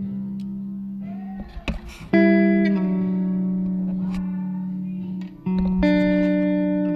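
Background music: plucked guitar chords ringing out and slowly fading, with a new chord struck about two seconds in and another near the end.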